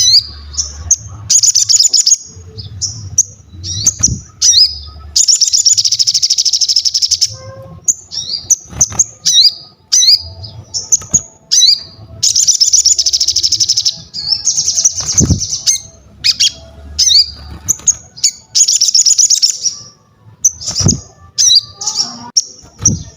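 Sogon (crescent-chested babbler) singing continuously. Quick series of short, high, upslurred whistles alternates with longer chattering trills of a second or two each.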